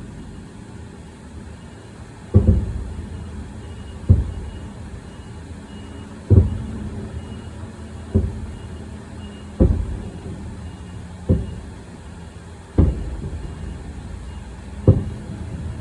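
Aerial firework shells bursting one after another, eight deep booms about every one and a half to two seconds, each followed by a short rumbling tail.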